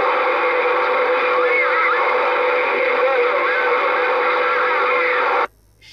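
CB radio receiver sounding a noisy, distorted transmission over the channel: a steady hum-like tone under hiss, with a few warbling, whistle-like sounds. It cuts off suddenly near the end when the transmission drops, leaving faint hiss.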